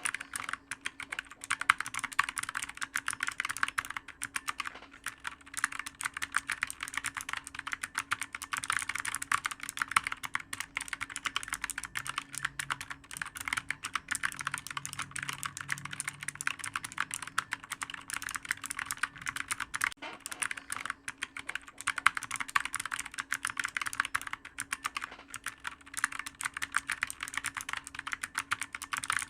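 Continuous fast typing on a clicky computer keyboard, many keystrokes a second with no real pauses. A faint steady hum runs underneath.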